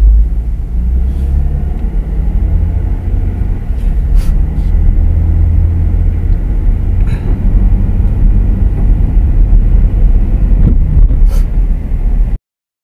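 Car driving slowly, a steady low rumble of engine and road noise heard inside the cabin, with a few faint clicks. The sound drops out abruptly near the end.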